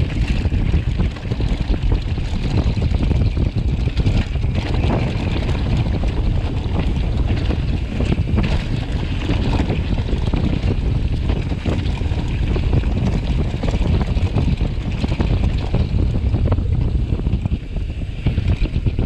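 Wind buffeting the camera microphone as a mountain bike rolls downhill on a rough dirt trail. The tyres crunch over gravel and the bike rattles and knocks over bumps.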